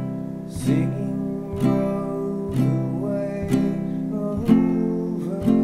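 Mahalo ukulele strummed once a beat in three-beat time, about one strum a second, playing the chorus chords of C, F and G7, with a voice singing along.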